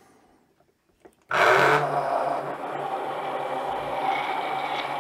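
Immersion blender switched on about a second in and running steadily in a tall glass jar of homemade mayonnaise, blending in the hot thickened starch paste.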